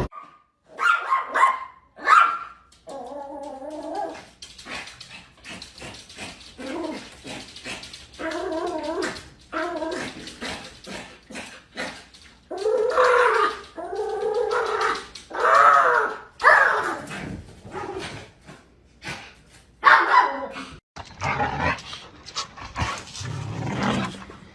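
A dog whining and barking in a string of short pitched calls, some with a wavering, bending pitch.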